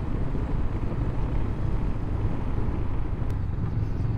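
Honda CB500X parallel-twin motorcycle under way at a steady cruise: an even engine drone with road noise, heard from the bike's own camera.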